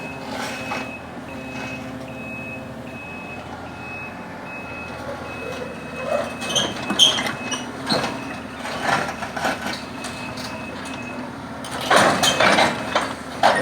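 A reversing alarm beeping, about two short high beeps a second, over a steady diesel engine running, as a small Kubota machine moves onto a truck. The beeping stops shortly before the end, and a burst of louder clattering noise follows.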